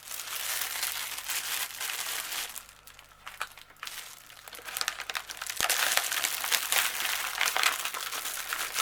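Plastic packaging crinkling as it is handled, with a brief quieter lull about three seconds in before the crinkling picks up again.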